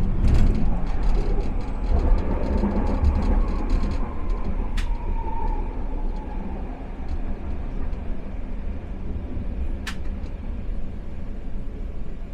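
Expo Line SkyTrain car running on its track: a steady low rumble with a faint whine that slowly drops in pitch as the train slows, and two sharp clicks about five seconds apart.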